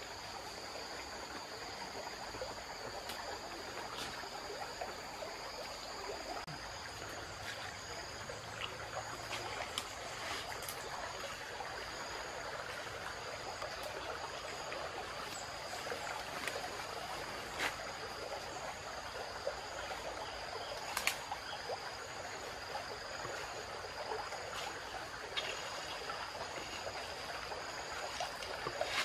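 Shallow stream flowing steadily over gravel, with insects droning on two steady high pitches throughout. Scattered sharp clicks and snaps, the loudest about two-thirds of the way in.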